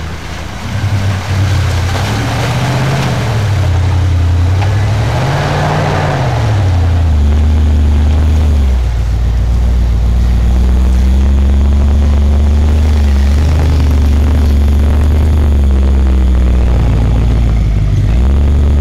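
Lifted Jeep Wagoneer's V8 engine revving up and down twice as the truck churns through deep snow, then running loud and steady under load, growing louder as it comes close, with its tyres spinning in the snow.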